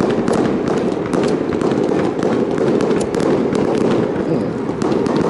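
Small ground-launched fireworks going off, a rapid, irregular string of sharp pops and crackles over a steady rushing noise.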